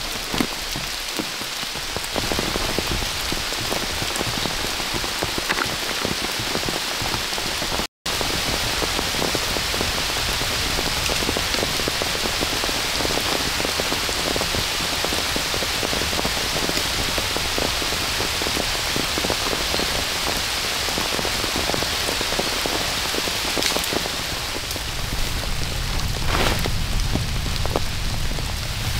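Steady rain falling, dense drops hitting close to the microphone. The sound cuts out for an instant about eight seconds in.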